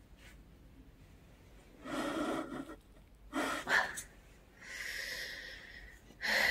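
A person's breathy snorts and puffs of breath while moving about, three of them, the last a longer, even hiss.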